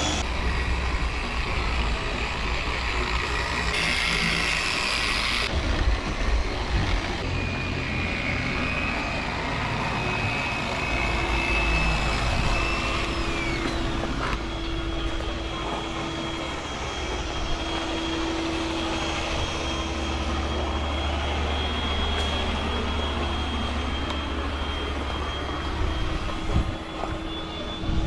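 Power sanders running steadily against a boat hull, sanding the first coat of cured black topcoat back before the second coat goes on. They make a steady whine over a low hum, and one whine drops away about halfway through.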